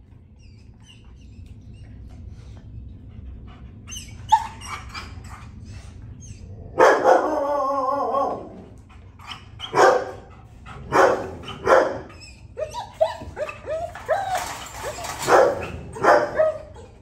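Dog barking in a kennel: quiet for the first few seconds, then barks in bursts, with one long drawn-out bark about seven seconds in and a quicker run of barks near the end.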